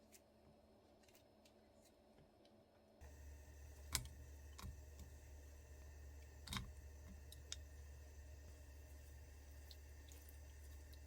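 Quiet kitchen handling sounds: faint clicks and a couple of sharper knocks, over a low steady hum that switches on about three seconds in.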